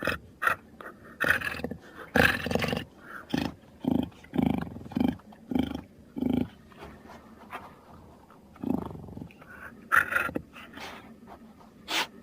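Jaguar calling in short, rough grunts and growls, including a run of about six grunts at roughly two a second in the middle.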